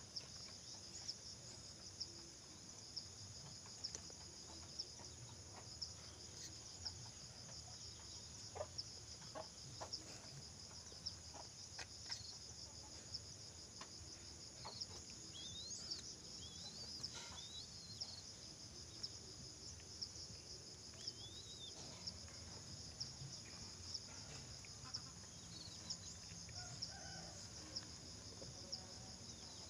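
Steady high-pitched insect chirring, with a sharp tick about once a second, faint clucking bird calls and a few short rising chirps.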